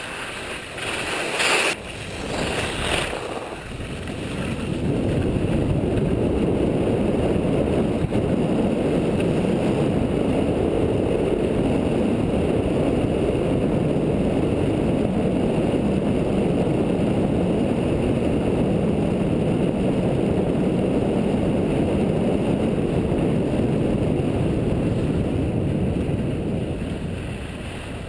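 Steady rush of wind on an action camera's microphone mixed with skis or a snowboard scraping over packed snow during a fast downhill run, building up over the first few seconds and easing off near the end as the rider slows.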